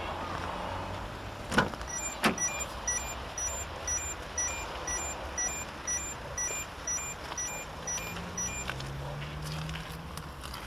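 A car door unlatching and opening, with two sharp clicks about one and a half and two seconds in. The Peugeot 207's warning chime then beeps rapidly, about three beeps a second, for some six seconds while the door stands open. A low rising hum begins near the end.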